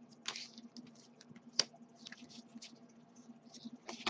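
Pokémon trading cards being shuffled and slid against one another in the hand: faint, irregular soft rustles and small ticks, with one sharper click about one and a half seconds in.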